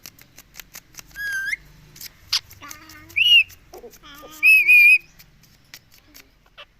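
Indian ringneck parakeet making high whistled calls. A rising whistle comes about a second in, a short arched call just after three seconds, and a loud two-note call near the middle, with short clicks in between.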